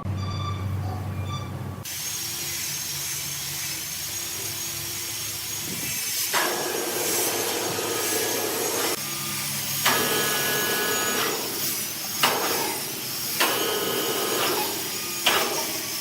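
A power tool running on wood with a steady hiss and a thin high whine, getting louder in several stretches as it bites into the wood, with a few sharp knocks.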